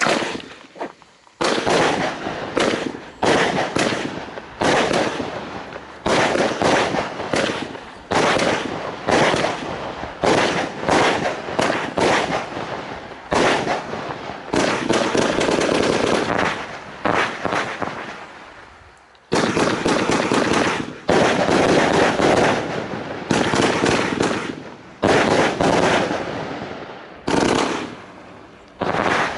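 Ortega firework cake (battery of 49 shots, 30 mm calibre) firing its shots in quick runs of launches and bursts, broken by a few brief lulls.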